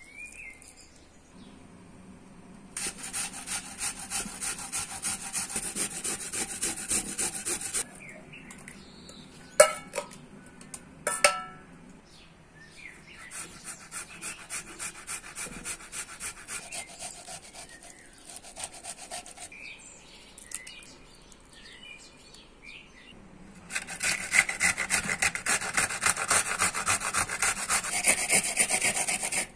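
Rapid, rhythmic scraping strokes of food being worked in the kitchen, in three spells: loud, then fainter, then loud again near the end. Two sharp knocks fall in the pause after the first spell.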